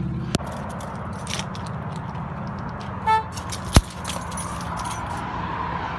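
Car engine running with keys jangling, a short beep about three seconds in and a sharp thump just after it.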